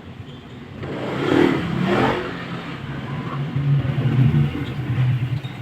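A motor vehicle engine revs up, its pitch rising, about a second in, then settles into a steady low running hum.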